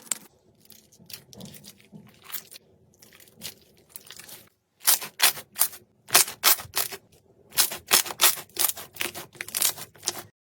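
Slime being squeezed and pressed by hand, making sharp crackling pops in quick runs, faint at first and much louder from about halfway in. It stops suddenly just before the end.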